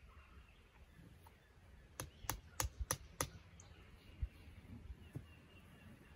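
Five sharp clicks in quick succession, about four a second, followed a second later by a single low knock.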